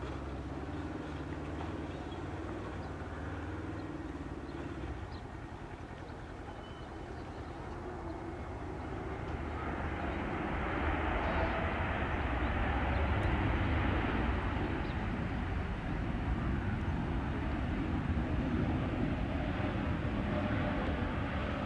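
Jet engines of an IndiGo Airbus A320-family airliner moving along the runway. The engine noise swells in about nine seconds in, reaches its loudest a few seconds later and holds there, over a steady low rumble.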